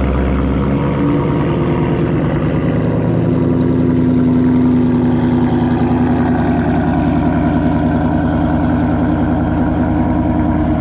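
A 2019 Ford Mustang GT's 5.0 L V8 idling loudly just after starting, through a Corsa Xtreme active exhaust. A clicking comes from the exhaust valves, likened to the baffles, which the owner hears for the first 15–20 seconds after every start: a fault in the active exhaust whose cause he doesn't know.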